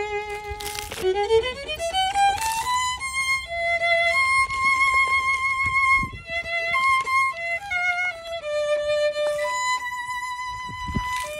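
Solo violin playing a slow melody, a single line of held notes with vibrato. About a second in, a quick run of notes climbs step by step.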